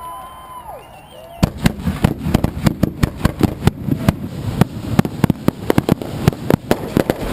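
Consumer fireworks: a few whistling tones in the first second or so, then from about a second and a half in a dense, rapid volley of bangs and crackling reports, several a second, as in a multi-shot cake or finale barrage.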